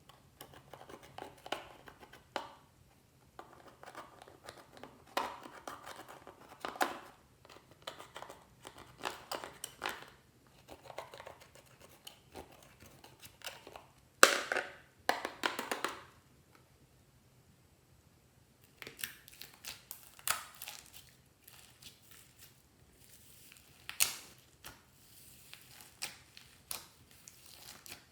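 Slime being squished, stretched and poked by hand, with irregular sticky crackles and popping clicks. The loudest bursts come about halfway through and again near the end, with a short pause between them.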